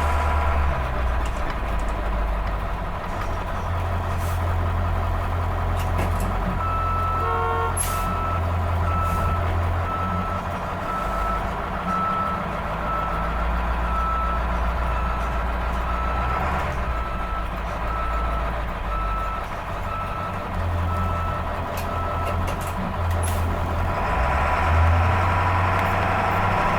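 A school bus engine running steadily while its reverse alarm beeps, about one and a half beeps a second, as the bus backs up. The beeping stops well before the end, and the engine gets louder near the end.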